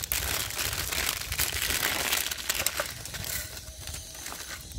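Plastic instant-noodle wrapper crinkling in the hands, a dense crackle that eases off about three seconds in.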